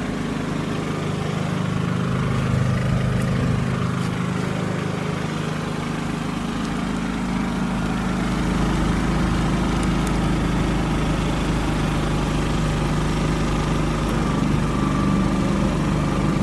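Champion 3100-watt dual fuel inverter generator, a single-cylinder four-stroke engine, running steadily on propane in eco mode under a load of about 700 watts of lights. Its engine note rises a little a few seconds in as the load takes hold.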